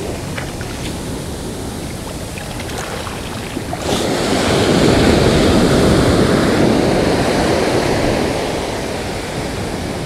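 Ocean surf breaking and washing up the sand, swelling louder about four seconds in and easing off toward the end.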